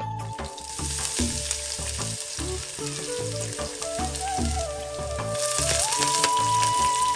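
Shallots, garlic and ginger sizzling in hot oil in a wide brass pot. The sizzle grows louder about five and a half seconds in, as curry leaves go into the oil. Background music plays underneath.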